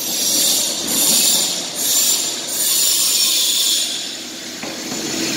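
Metalworking workshop noise: a loud high hiss from power tools that swells and fades about once a second over a low steady hum, easing off near the end.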